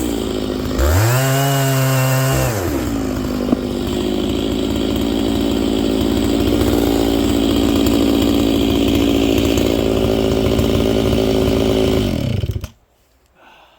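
Stihl MS660 two-stroke chainsaw with a 36-inch bar and ripping chain, revved up briefly, then held at a steady, lower pitch under load for about nine seconds while ripping a log along the grain. It winds down and stops near the end.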